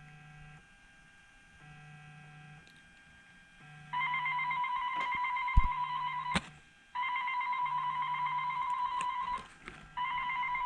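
Incoming phone-call ringtone playing through the BT201 Bluetooth module: a trilling electronic tone that starts about four seconds in and repeats in bursts of two to three seconds with short breaks. Before it, a faint low buzz pulses on and off about once a second.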